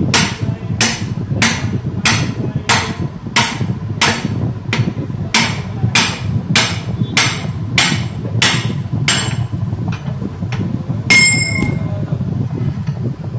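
Sledgehammer blows on steel, driving the pivot pin out of a JCB backhoe's dipper joint. About fifteen hard, evenly paced strikes come roughly 0.6 s apart, then stop. About 11 seconds in there is one more blow that rings with a clear metallic tone.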